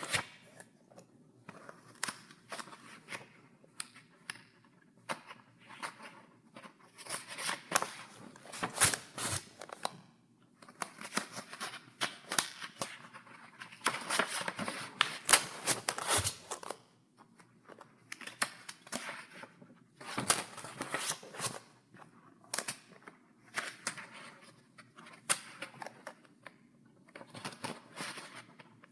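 Pages of a paper file being turned one after another: crisp rustles and snapping flicks of paper, in irregular bursts with short pauses between them.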